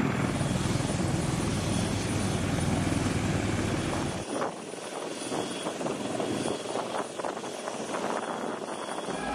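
Sikorsky CH-53E Super Stallion heavy-lift helicopter running with its rotors turning, a dense, steady rotor and turbine noise with a deep rumble. About four seconds in the sound cuts to a thinner rotor and engine noise with much less rumble as the helicopter lifts off.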